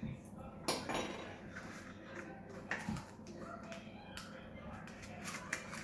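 Scattered light clicks and clinks as a metal spoon and paper cupcake cases are handled at a table.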